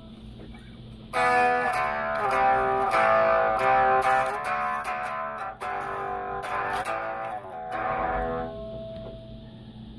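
Plucked guitar notes played through a homemade breadboard tube amplifier built on cheap 6J1P tubes. The notes start about a second in and fade out near the end, over a steady low hum.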